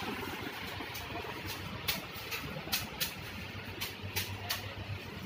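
Footsteps clicking on a hard shop floor: about eight sharp steps at a brisk walking pace, with a short pause in the middle, over a steady low hum of room noise.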